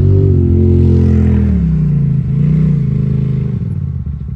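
Jeep Wrangler engine revving as it crawls down a steep rock descent: held at high revs, dropping about a second and a half in, a short throttle blip, then settling to a lower, pulsing idle near the end.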